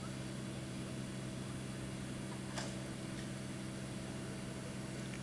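Steady machine hum made of several even low tones, like an engine or generator running on set, with a single sharp click about two and a half seconds in.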